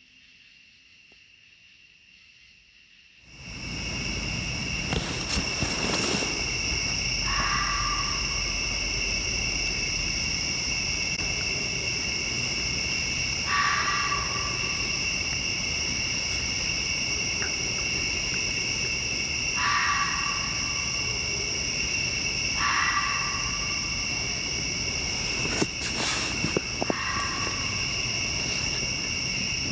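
Near silence, then about three seconds in a steady insect chorus starts suddenly, a continuous high trilling. Five short calls from another animal, each about a second long, sound at intervals of three to six seconds.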